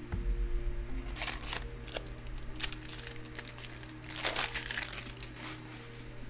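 Foil wrapper of a baseball card pack crinkling as it is torn open and pulled off the cards. The crinkling is loudest in two bursts, one about a second in and one about four seconds in.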